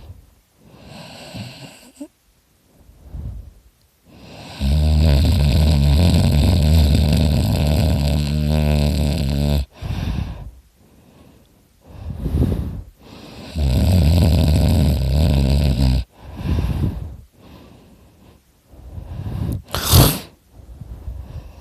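A man snoring loudly with his mouth open: two long, rattling snores, the first about five seconds long and the second shorter, with quieter breaths between them. A brief sharp noise comes near the end.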